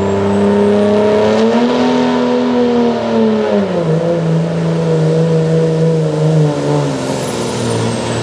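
Dodge Ram's Cummins diesel engine running at full throttle under a pulling sled, its pitch rising about a second and a half in, then dropping about three and a half seconds in and holding lower as the sled loads it down, with the turbocharger whistling high above it.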